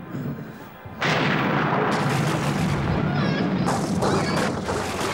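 Horror film sound effect: over a low rumble, a sudden loud roar of dense, rumbling noise breaks in about a second in and keeps going, with faint wavering shrieks inside it.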